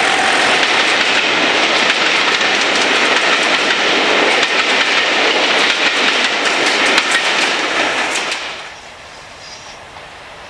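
Rake of passenger coaches passing close by under a bridge, wheels clattering over the rail joints with a steady rumble. About eight and a half seconds in, the sound drops abruptly to a much quieter background.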